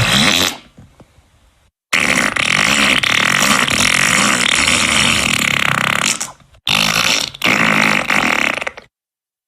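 Fart sound effects played one after another: a short one, a long drawn-out one of about four seconds, then two shorter ones, each cut off into dead silence.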